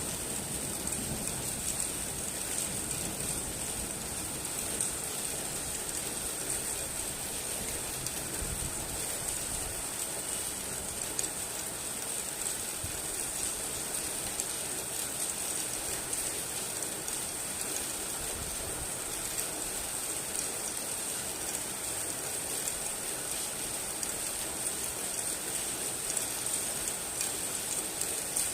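Steady heavy rain, a dense even hiss of drops pattering on a surface.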